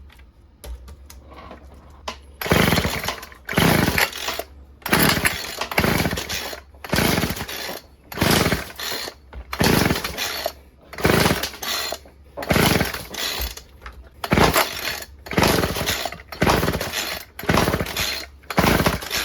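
Stihl FS36 string trimmer's small two-stroke engine being pull-started again and again, about one pull a second from a couple of seconds in: the recoil starter rasps and the engine turns over without firing or catching.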